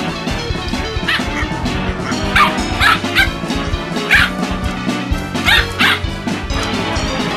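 A puppy barking in a series of short, high yips, about seven of them, over background music.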